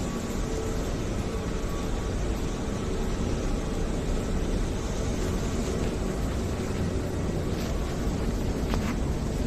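Steady low rumble and hiss of airport terminal ambience, with a faint steady hum underneath and a couple of faint clicks near the end.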